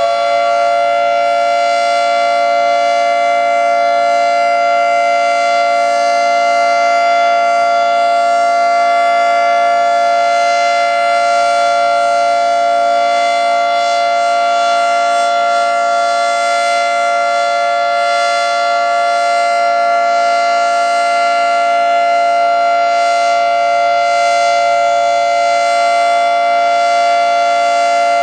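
Federal Signal 3T22A three-tone outdoor warning siren sounding the steady Alert signal, fully wound up and holding a loud, unchanging chord of several tones. It runs healthy.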